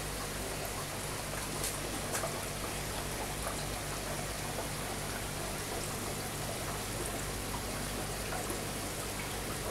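Steady bubbling and trickling of water from air-driven sponge filters in aquarium tanks, with small scattered pops of bursting bubbles over a low steady hum.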